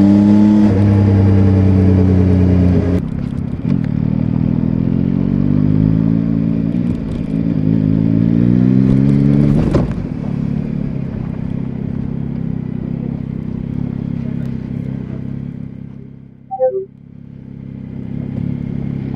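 Yamaha Tracer 9's CP3 inline-three engine, recorded raw. It runs at road speed and eases off, then pulls up through the revs after a cut, then idles steadily. The note dips briefly near the end, with a short falling beep.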